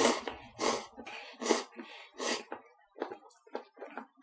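Instant cup noodles being slurped from chopsticks: about four loud slurps in the first two and a half seconds, followed by quieter chewing and small clicks.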